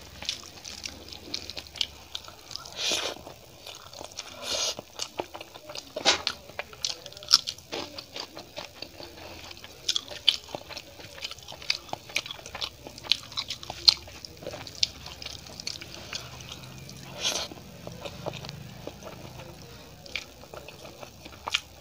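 Close-miked eating sounds: fingers squishing and mixing cooked rice on a steel plate, and mouth chewing with lip smacks. The sounds come as many short, irregular clicks and wet smacks.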